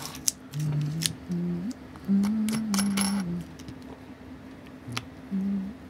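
A low, wordless hum of a few held notes stepping up and down in pitch. Over it come light metallic clicks and taps from a stainless-steel watch case and caseback being handled.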